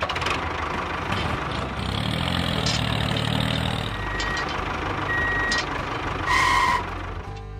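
A truck engine running with a reversing beeper. The beeper sounds three times about a second apart in the second half, and the last beep is the loudest.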